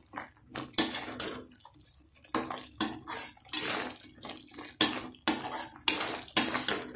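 Metal ladle scraping and stirring around a metal kadai through thick pumpkin halwa, in repeated short strokes about two a second.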